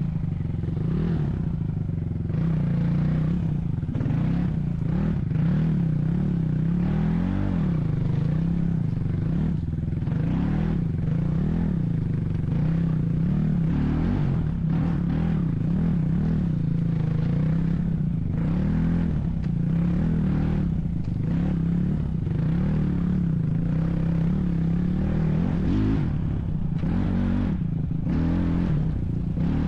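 Motor vehicle engine running under load, its revs rising and falling every second or two, with rattling and scraping over rough ground.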